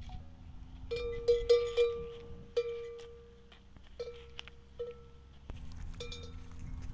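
Metal bell hanging from a camel's neck clanking as the camel moves: irregular single clangs, each ringing on and fading away, several in quick succession about a second in, then more spread out.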